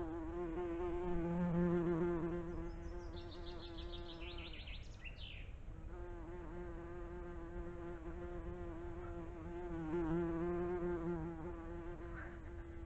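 A flying insect buzzing close to the microphone: a steady hum that wavers slightly, breaks off for about a second in the middle, then resumes. About three to five seconds in, a short run of high chirps falls in pitch.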